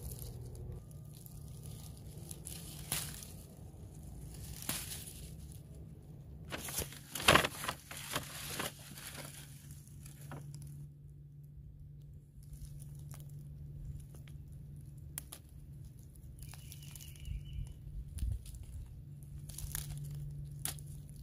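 Dry leaves and plant stems rustling and crackling as they are handled or trodden, with a cluster of sharp snaps about seven seconds in.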